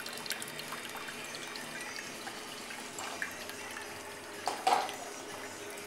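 A cocktail being poured in a thin stream from a stainless steel cocktail shaker into a martini glass, a steady trickle of liquid. A brief louder sound comes about four and a half seconds in.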